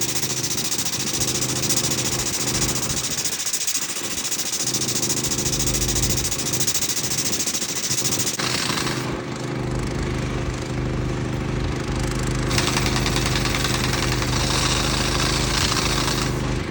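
An engine running steadily under a loud, dense mechanical rattle. The rattle drops away for about four seconds past the middle, then starts again.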